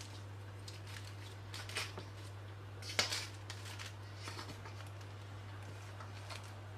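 A metal server scraping in a metal baking tray and crisp baked baklava layers crackling as a slice is lifted: a few short, sharp crunches, the loudest about three seconds in, over a steady low hum.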